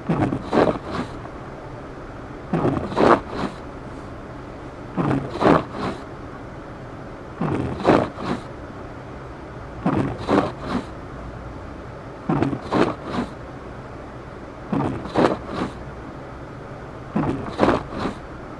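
Car windshield wipers sweeping back and forth against snow on the glass, a scraping swish about every two and a half seconds, eight times, over a steady low drone of the car's engine and tyres inside the cabin.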